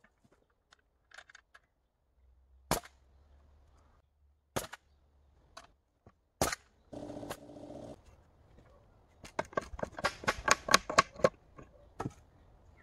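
Jeil FN-21 pneumatic nail gun firing three sharp shots about two seconds apart, driving nails into the sawhorse boards. Near the end comes a rapid run of louder knocks and clatter.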